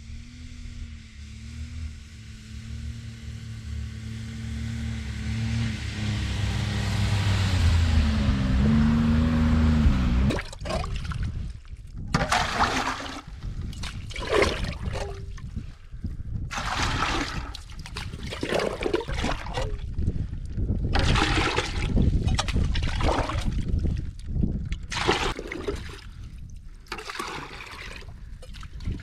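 A small engine runs steadily for about ten seconds, getting louder and wavering in pitch before it stops abruptly. Then water splashes and pours in repeated bursts as a metal pot scoops water from a hole in the ice.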